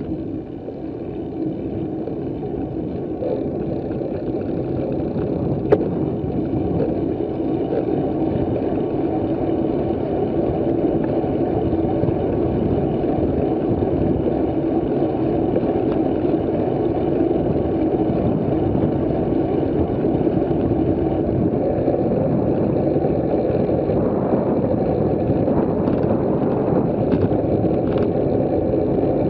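Wind rushing over the microphone of a bicycle-mounted camera, a steady low rumble that grows louder over the first ten seconds as the bike picks up speed downhill, then holds. A single sharp click about six seconds in.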